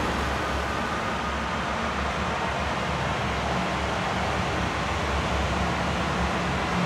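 Steady mechanical rumble and hiss with a low hum underneath, growing slightly stronger near the end.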